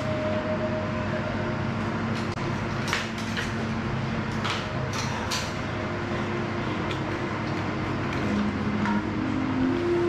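Soft ambient background music with long held tones over a steady hiss. Several sharp clacks come between about two and five and a half seconds in, from the workout equipment.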